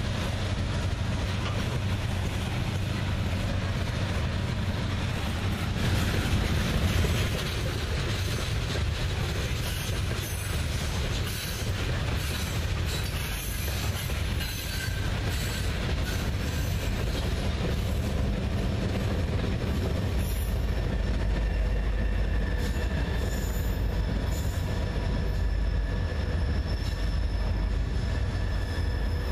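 Norfolk Southern freight train of open-top coal hopper cars rolling past, with steady wheel-and-rail rumble and clatter and faint wheel squeal. About two-thirds of the way through, a deep diesel locomotive rumble joins as a locomotive passes.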